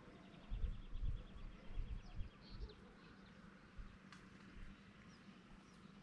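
Wind buffeting the microphone in low rumbles through the first two or three seconds, over a faint steady buzz of insects. A quick run of high ticks and a few scattered bird chirps sound over it.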